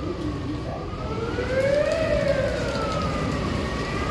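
A siren wailing slowly outside, its pitch rising to a peak about halfway through and falling back near the end before starting to rise again, growing louder over the first couple of seconds.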